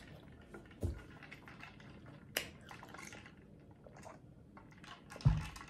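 Drinking through a straw from a plastic tumbler: faint sips with a few soft clicks. A low thump comes near the end as the cup is handled.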